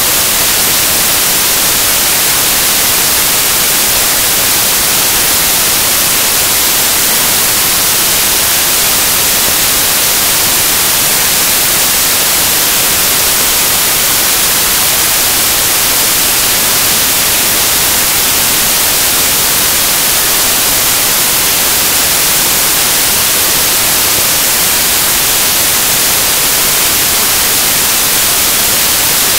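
Loud, steady static hiss, brightest in the treble, with no speech or other sound in it: the noise of a corrupted recording.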